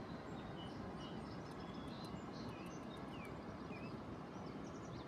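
Small birds chirping with many short, high calls and little gliding notes, over a steady low rumble.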